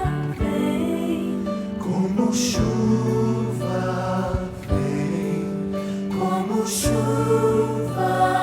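Choir singing a Christian song, held chords over low bass notes with brief breaths between phrases.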